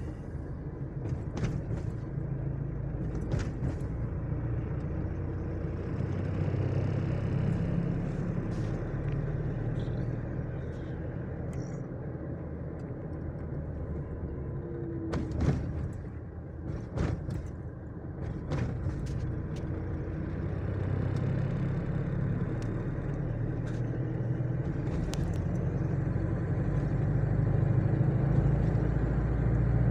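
Steady engine and road noise of a moving motor vehicle, with a low hum that shifts in pitch and occasional clicks and knocks.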